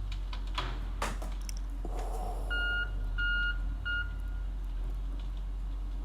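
Three high electronic beeps, the first two longer and the last one short, over a steady low hum, with a few sharp clicks before them.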